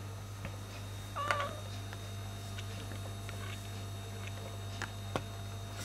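Silver tabby cat giving one short meow about a second in, with a few faint clicks later and a steady low hum underneath.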